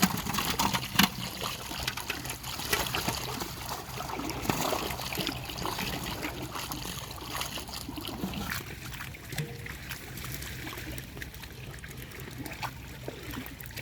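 Pond water splashing and trickling, with many small sharp splashes and drips, busier in the first half and thinning out after about nine seconds.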